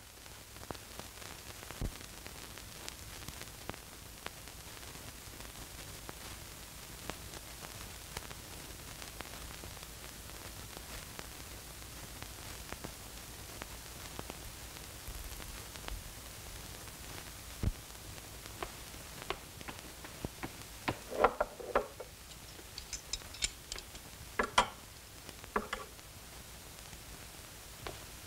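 Hiss and crackle of an old 1960 film soundtrack over silent opening credits, with scattered clicks and pops. In the last several seconds a few sharp clinks and knocks stand out above the hiss.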